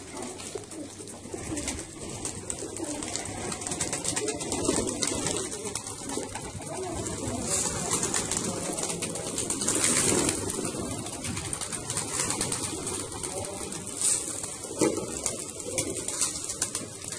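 A large flock of domestic desi pigeons cooing together in a continuous, overlapping murmur, with many short clicks and rustles among them.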